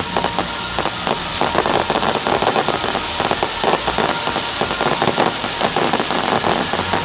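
Fireworks crackling: a dense, continuous stream of rapid sharp pops and crackles, like crackling shells bursting overhead.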